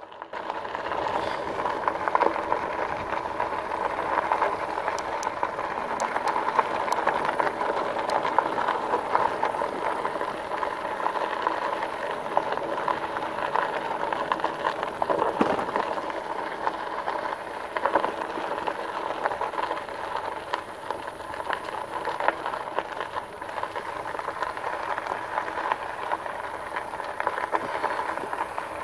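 A 2018 RadRover electric fat-tire bike riding over a gravel road: a steady crunch from the tires, with small ticks and rattles from the bike.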